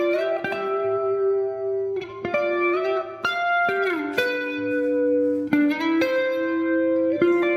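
Electric guitar with a clean tone played through an effects pedalboard: notes and chords picked about once a second or so, each left to ring on into the next.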